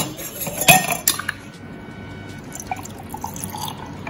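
Ice cubes tipped from a spoon clink sharply into an empty drinking glass, twice in the first second. After that comes a quieter pour of thick pumpkin punch into the glass over the ice, with small splashes.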